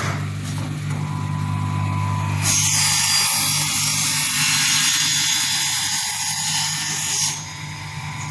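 Automatic CNC wood cutting saw running with a steady motor hum; about two and a half seconds in, the blade cuts through solid square wood stock with a loud hissing whine for about five seconds, then drops back to the idle hum.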